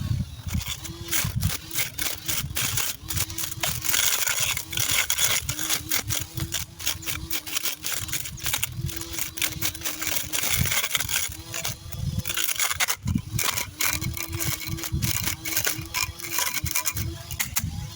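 Electric lawn mower cutting through weeds and brush: a steady motor hum that drops in and out every second or two, over rapid crackling and snapping of stems against the blade.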